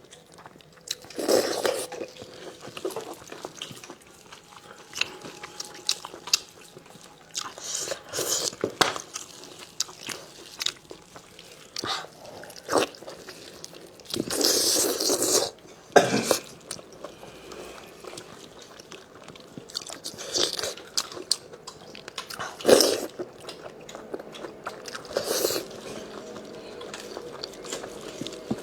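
Close-miked eating sounds of someone biting and chewing braised spicy lamb chops. Wet clicks and short bursts come irregularly, with louder bites now and then.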